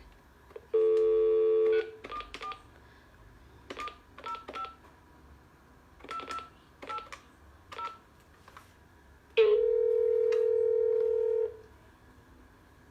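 Landline telephone being dialled: a brief burst of dial tone, then about ten short keypad touch-tone beeps at uneven intervals as the number is entered, and near the end a single steady line tone lasting about two seconds.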